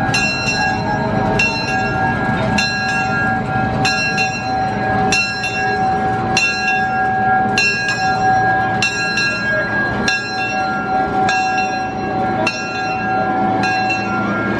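Locomotive bell of an arriving train ringing steadily, one stroke about every second and a quarter, over a crowd's chatter.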